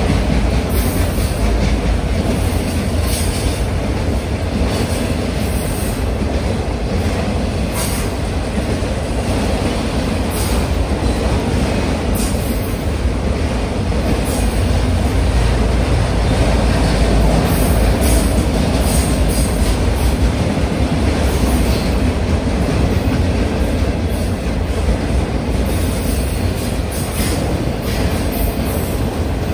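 Freight train of enclosed autorack cars rolling past: a steady rumble of steel wheels on rail, with short high-pitched wheel squeaks here and there.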